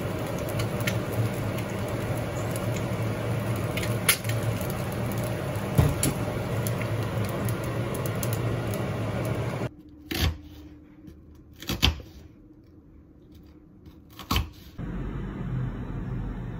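An egg frying in hot oil in a nonstick pan, a steady sizzle with occasional sharp pops over the hum of an induction hob. About ten seconds in the sizzle stops, and a few separate clinks of a spatula and bowl follow as the egg is plated.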